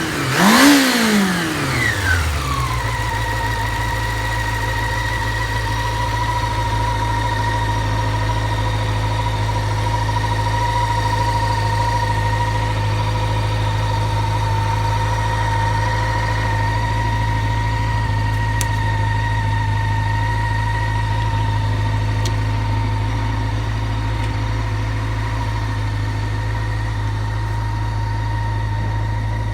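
Honda CB400 Super Four (NC31) inline-four engine blipped once at the start, the revs falling back within about two seconds, then idling steadily. After long storage it runs quietly with no abnormal noise.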